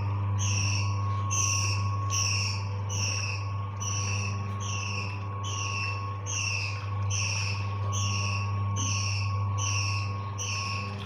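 Electric washing machine running: a steady motor hum under a high, falling squeak that repeats very evenly about every 0.7 s.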